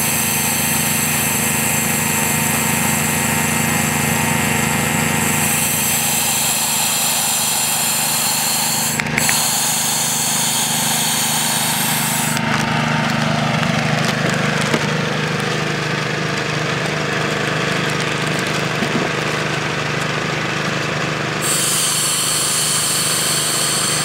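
Gold dredge's engine and air compressor running steadily, with compressed air hissing from a hookah regulator being purged into a plastic bag; the hiss stops about halfway through and starts again near the end.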